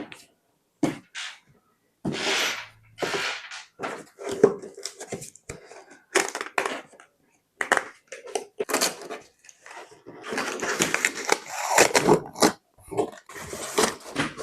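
Packaging being handled while a computer monitor is unboxed: irregular rustling, crinkling and tearing of cardboard and plastic wrap, with sharp knocks. The sound comes in short bursts with brief dead silences between them, and is busiest near the end.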